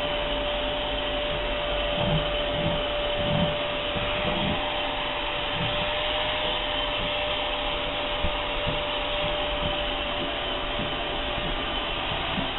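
Vacuum cleaner running with its bare hose end drawn through a dog's thick coat, sucking up loose fur: a steady rush of air with a steady whine over it, and a few low bumps a few seconds in as the nozzle moves through the fur.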